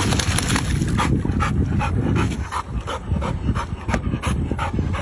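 A swimming dog panting hard in quick, even breaths, about three a second, over a steady low rumble.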